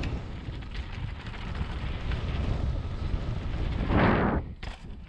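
Wind buffeting a helmet- or chest-mounted camera's microphone as a mountain bike rolls along a dirt trail, over a steady low rumble with faint rattling clicks. About four seconds in a louder rush of wind noise swells, then cuts off sharply.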